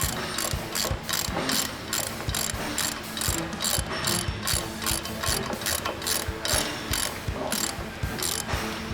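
Socket ratchet clicking in a steady run of short strokes as the water pipe flange bolts on a Geoprobe DM450 drill head are tightened.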